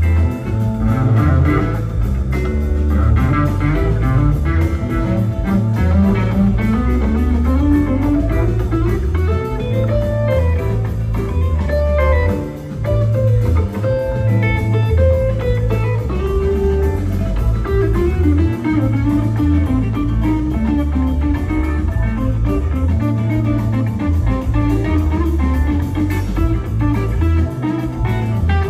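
A live rock band plays an instrumental blues-rock jam: two electric guitars over bass guitar and drums. A lead guitar line climbs steadily for several seconds, then winds back down.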